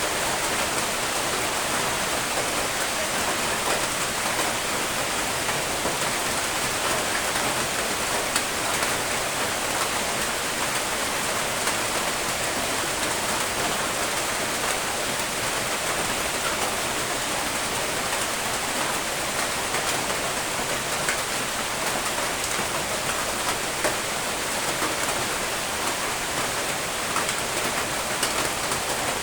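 Steady, even rain with a constant hiss and scattered individual drops ticking on a surface.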